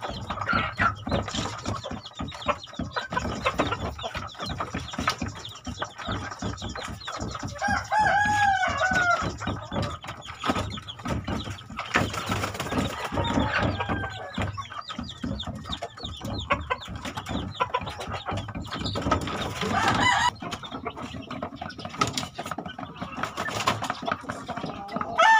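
Rooster crowing: one long crow about eight seconds in and another starting near the end, with clucking and scattered clatter between.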